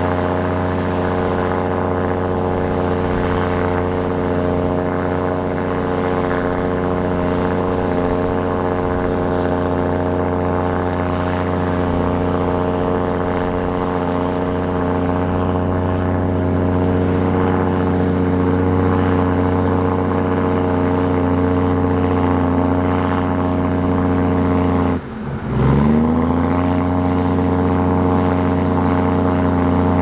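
Heavy diesel engine of earthmoving equipment running steadily. Near the end its pitch drops sharply for a moment, then climbs back up over about a second.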